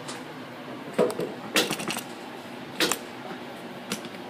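Handling noise: several sharp clicks and light knocks, about four in all with a quick run of them about a second and a half in, like small hard objects clinking.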